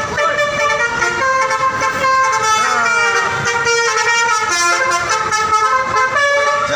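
Telolet horns: Indonesian buses' multi-tone musical air horns sounding a string of held notes that step up and down in pitch, like a short tune.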